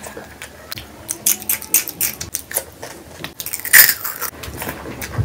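Close-miked eating sounds: wet chewing and mouth clicks as a mouthful of rice and kidney-bean curry is eaten by hand, with a louder smack just under four seconds in.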